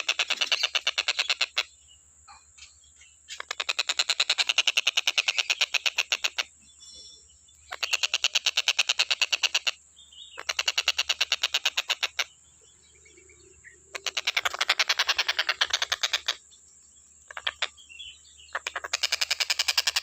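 Tengkek buto (a Todiramphus kingfisher) calling in rapid chattering trills of fast repeated notes. The trills come in about six bouts of one to three seconds, with short pauses between them.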